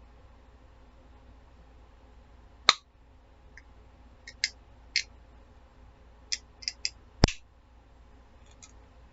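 Soda can being handled: a scattered series of sharp clicks and taps, the two loudest about two and a half and seven seconds in.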